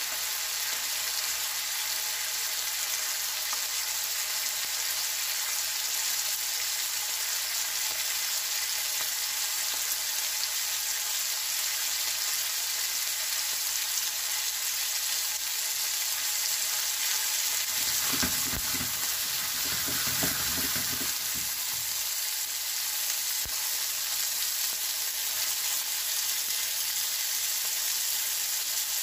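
Thin-sliced New York strip loin steaks sizzling steadily in hot oil in a nonstick frying pan, still searing on their first side. A few seconds of lower noise join the hiss about two-thirds of the way through.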